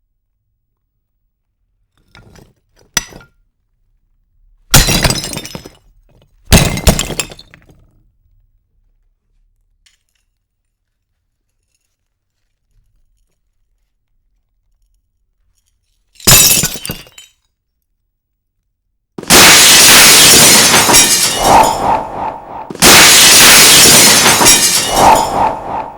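A series of glass-breaking sound effects separated by silence: a few faint clinks, two short sharp smashes, another smash after a long pause, then two long, loud crashes of shattering glass one straight after the other near the end.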